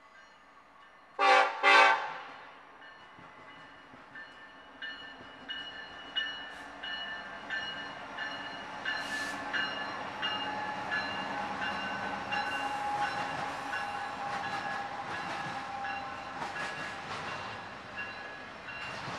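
A diesel freight locomotive's air horn gives two short blasts about a second in. Then a double-stack intermodal freight train rolls past, its wheels clicking over the rails with steady high-pitched squealing.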